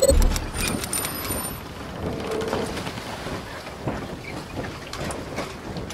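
Logo-intro sound effect: a low boom at the start, a brief high sparkle of thin tones and ticks in the first second and a half, then a steady noisy wash with scattered soft clicks.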